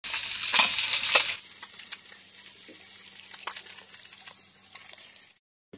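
Oil sizzling in a pan over a wood fire: a steady hiss with scattered small pops.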